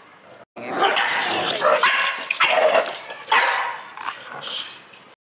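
A dog barking aggressively in a rapid run of loud, harsh barks, starting about half a second in and dying down near the end: a warning display at another dog.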